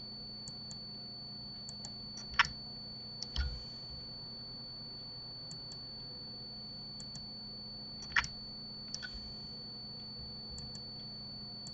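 Scattered clicks of a computer mouse and keyboard, louder ones about two and a half, three and a half and eight seconds in, over a steady low hum with a faint high whine.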